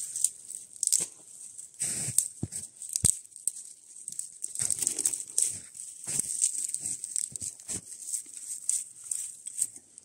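Freshly lit kindling fire of thin twigs and split sticks crackling and popping irregularly as it catches, over a steady hiss, with a few sharper pops about one, two and three seconds in.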